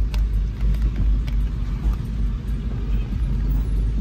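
Steady low rumble of a car's engine and road noise heard from inside its cabin as it creeps forward in slow traffic, with a few faint clicks.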